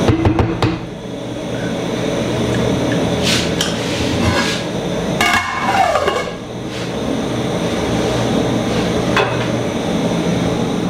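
Wooden spoon knocking on the rim of an aluminium cooking pot, then the pot's flat aluminium lid clattering and scraping as it is set on and settled. There are a few sharp metal clanks, with a brief ringing scrape about five to six seconds in, over a steady background hum.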